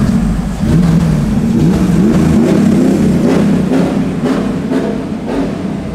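A vehicle engine revving up and down several times, with music with a beat mixed in.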